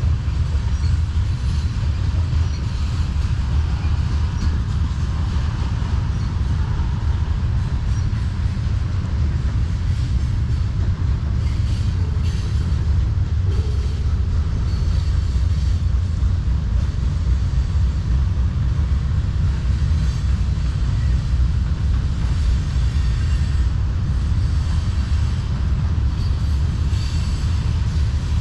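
Freight cars of a Norfolk Southern manifest train rolling past: a steady low rumble of steel wheels on the rails that holds without a break.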